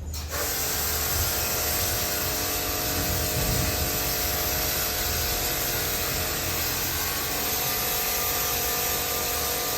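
AGARO portable electric pressure washer running, spraying shampoo from its attached container: a steady hiss of spray over the even whine of its motor, starting suddenly at the very beginning.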